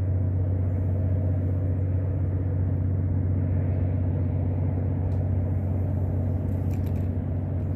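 A steady, low mechanical hum of an engine or motor running at a constant speed. A few faint clicks come about five and seven seconds in.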